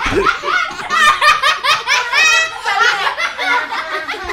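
Two young girls and a man laughing hard together, the girls' high-pitched, rapid laughter loudest, with one long high squeal of laughter about two seconds in.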